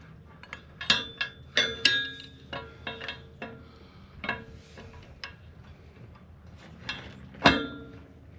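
A wrench working a hydraulic hose fitting as it is tightened onto the hose end: a string of sharp metallic clicks and clinks, some ringing briefly, the loudest one about seven and a half seconds in.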